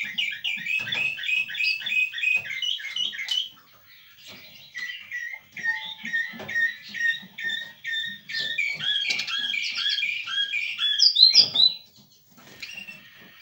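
Caged male Eurasian siskin singing: a quick run of repeated chirps at about four a second, a short pause, then a more varied twittering phrase that is loudest shortly before it breaks off near the end, followed by softer notes.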